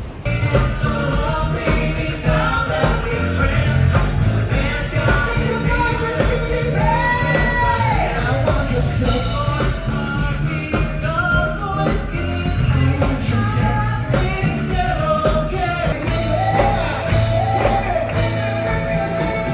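Live show music: a male vocal group singing into microphones over a band with drums, saxophones and trumpets, heard from the audience in a theatre.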